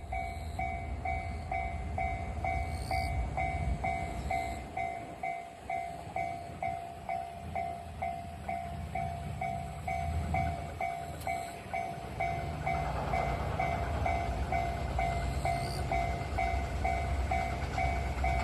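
Japanese level-crossing warning bell ringing in an even rhythm, about two and a half dings a second, over the low rumble of an approaching train. The train noise grows from about two-thirds of the way in.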